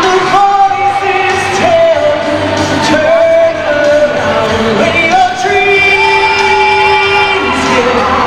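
Male vocalist singing into a microphone over backing music through an arena sound system, holding long notes, the longest about five seconds in.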